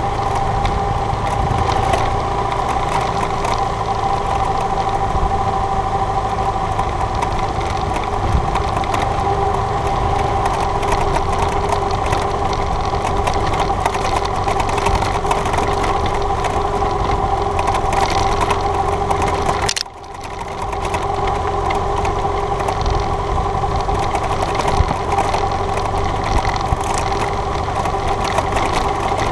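BMW GS adventure motorcycle engine running steadily while riding a gravel track, with a constant hiss of wind and road noise. About twenty seconds in the sound drops off for about a second, then picks back up.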